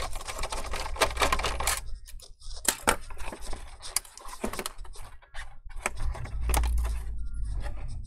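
Small metal clicks and rattles from handling a desktop hard drive in its steel drive cage, just after its retaining screws are taken out. A dense run of clicking comes in the first couple of seconds, then scattered sharp clicks and knocks as the cage is lifted and set back.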